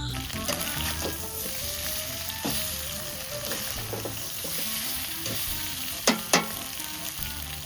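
Pieces of pork sizzling in hot oil in a kazan as they are stirred, with two sharp knocks of the utensil against the pot about six seconds in.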